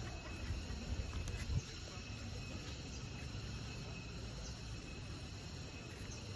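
Insects in rice fields chirring steadily, several high-pitched tones held without a break. A low rumble underneath stops about a second and a half in.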